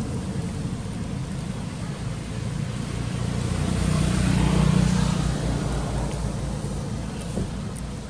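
A motor vehicle's engine hum passes by, growing louder to a peak about halfway through and then fading away.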